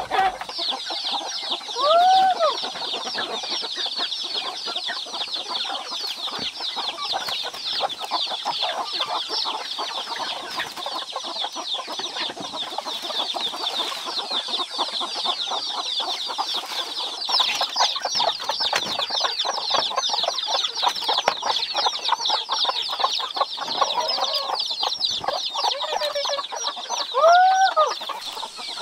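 Domestic chickens clucking and calling, with a loud rising-and-falling call about two seconds in and two more near the end. Under it runs a steady, dense high chirping.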